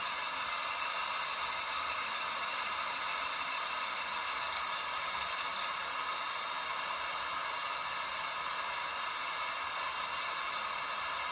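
LG WT5680HVA top-load washer running, with a steady hiss like water spraying into the tub.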